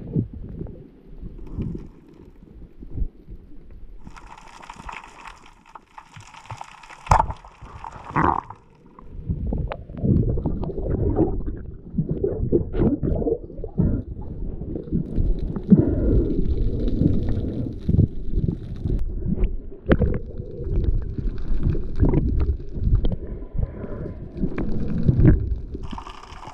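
Underwater water noise on an action camera's housing as a diver swims: a steady low rumble and gurgling, broken by many small knocks and clicks. Two spells of hiss come about four and six seconds in.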